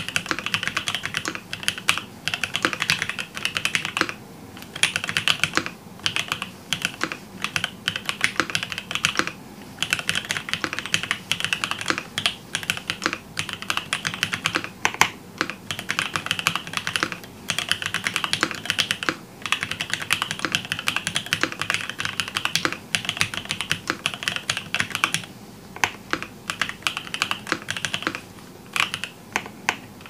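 Fast, continuous typing on an Endless 80 tenkeyless mechanical keyboard: rapid runs of keystrokes broken by several short pauses.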